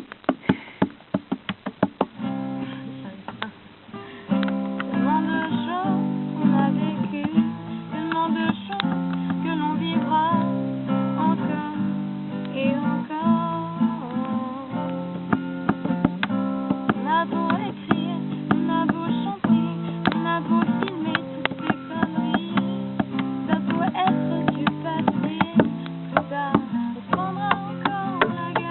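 Acoustic guitar played in a strummed improvisation, opening with a run of sharp taps before full chords settle in about four seconds in, with a wavering higher melody line above the chords.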